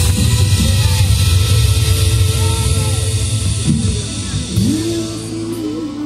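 Dance music blasting from a massive horeg sound system of stacked subwoofers (Laser Audio's rig of 16 CLA subwoofers), the heavy bass dominating. The bass eases off about four and a half seconds in, and a wavering held tone comes in.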